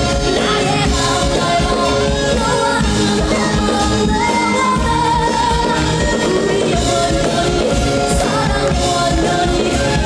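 Loud, steady pop music with a woman singing the melody over the accompaniment.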